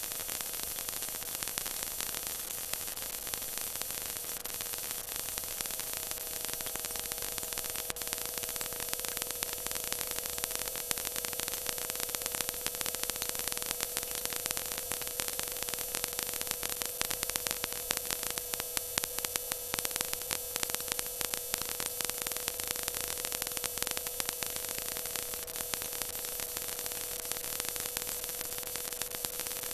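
Stock car running flat out in the cockpit, heard as a harsh, crackly hiss with a steady drone under it.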